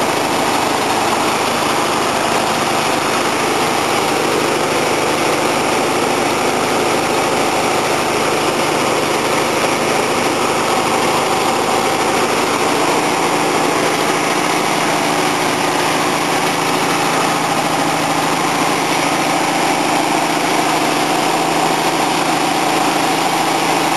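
A 1966 VW Beetle's air-cooled flat-four engine idling steadily, fed from a makeshift bottle fuel tank.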